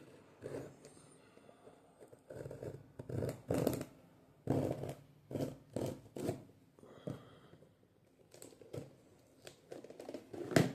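Product packaging being torn open by hand: a series of short, irregular ripping and rustling sounds, sparse for the first couple of seconds, busiest in the middle, with a sharp rip near the end.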